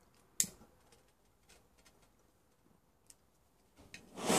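A sharp click and a couple of faint ticks, then near the end a rising rush of gas as a BRS-3000T canister stove's burner is lit and catches, burning with a loud hiss.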